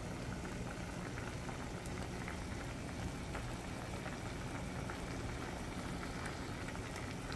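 Pot of fruit in cinnamon-leaf sugar syrup boiling uncovered on the stove, a steady bubbling simmer.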